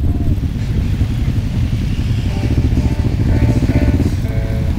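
Several motorcycles riding slowly past, their engines running steadily.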